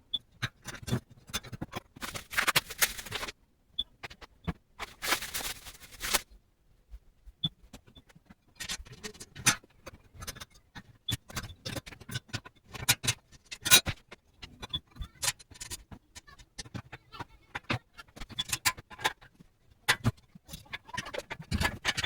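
Fast-forwarded sound of a propane stove being assembled by hand: a quick jumble of clicks, knocks and metal clatter from parts and screws being handled, with two longer scraping stretches about two and five seconds in.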